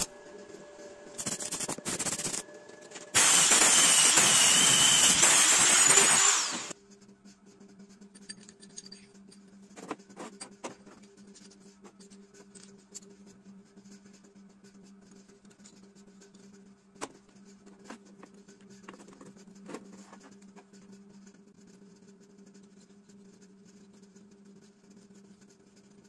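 Arc welding a metal washer onto a bolt held in a vise: two short bursts of crackle, then a steady crackle for about three seconds. After it stops, a low steady hum remains, with faint clicks of the metal nuts and bolt being handled.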